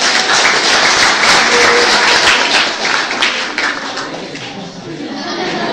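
Audience applauding, loud for about four seconds and then dying down.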